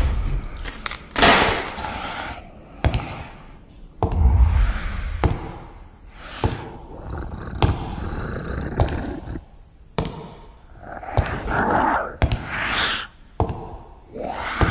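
Horror-film sound effects: a string of sharp thuds and slams between noisy, roar-like swells, one with a deep rumble about four seconds in.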